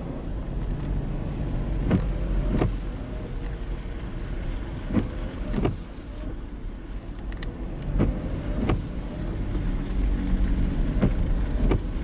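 Car windshield wipers running, heard from inside the car: a pair of knocks about half a second apart every three seconds or so, with a faint motor whine as the blades sweep between them, over the steady low rumble of the moving car.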